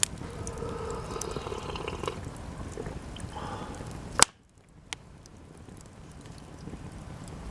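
Cedar offcuts burning in a campfire: two loud, sharp pops as the wood bursts, one at the start and one about four seconds in, with a smaller pop just after. Between them the burning wood gives off a short whistling sizzle over a low, steady crackle.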